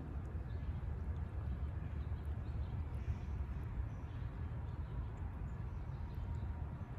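Steady low rumbling outdoor background noise with no distinct duck or duckling calls.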